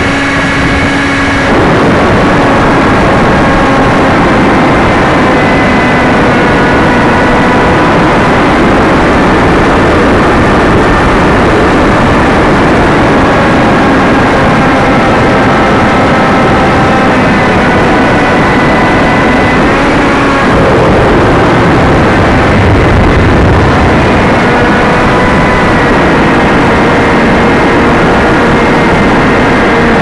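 Brushless electric motor and 6x5 pusher propeller of an AXN foam RC plane in flight, a whine made of several tones that drift up and down in pitch with the throttle, under loud wind rush on the onboard keychain camera's microphone. About twenty seconds in, a few seconds of heavier low buffeting.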